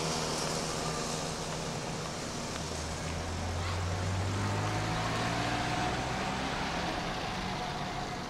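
Outdoor traffic noise: a steady background hiss with a low engine hum from a vehicle that swells for a few seconds in the middle.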